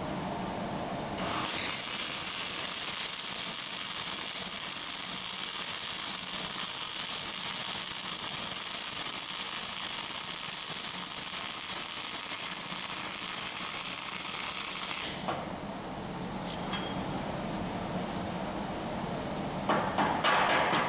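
Flux-cored wire-feed welding arc running steadily with a hiss for about fourteen seconds while a cover pass is laid on a steel angle joint, then cutting out. Near the end a chipping hammer starts rapping the slag off the fresh weld in quick, even knocks.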